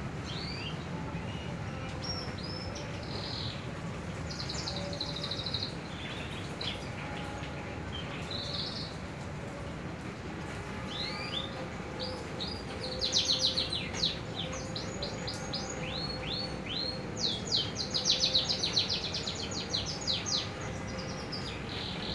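Small songbirds chirping and calling, a female canary and an oriental magpie-robin, in scattered whistled notes. Two fast runs of rapid chirps come about halfway through and again near the end, over a steady low hum.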